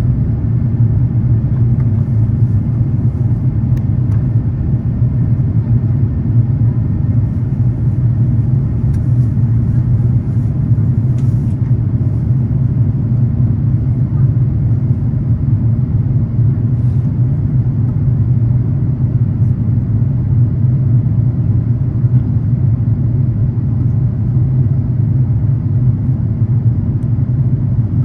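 Steady low rumble of an Airbus A350-900's Rolls-Royce Trent XWB engines and rushing air, heard inside the passenger cabin during the takeoff.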